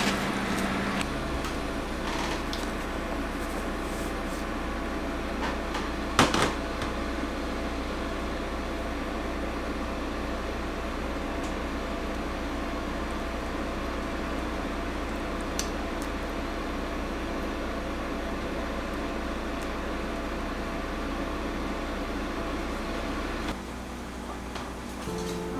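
Steady hum of a kitchen appliance or fan running, with one sharp knock about six seconds in; the hum drops a little a couple of seconds before the end.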